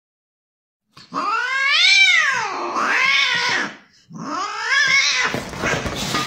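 A cat yowling: two long, drawn-out meows, each rising and then falling in pitch, the first starting about a second in. This is the sound played to provoke a dog's reaction.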